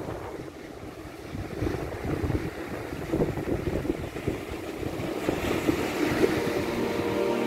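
Wind buffeting the microphone in irregular gusts, over the wash of sea surf.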